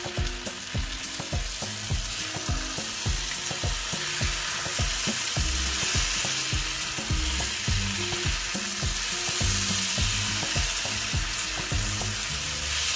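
Potatoes frying in oil in a non-stick pan, giving a steady sizzle. A spatula scrapes and knocks against the pan with frequent irregular strokes as the potatoes are stirred and toasted with their spices.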